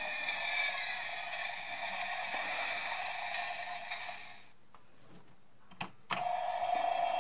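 Recorded car-driving sound effect played through the small built-in speaker of a 1/15 scale DeLorean model, thin and without any low end. It cuts out about four and a half seconds in; a click comes about six seconds in and another sound effect starts with a steady hum.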